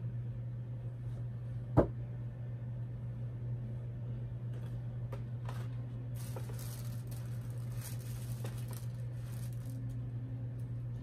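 Doll packaging being handled: a sharp click about two seconds in, then a few lighter clicks and several seconds of rustling as the cardboard box and its insert are slid and pulled apart, over a steady low hum.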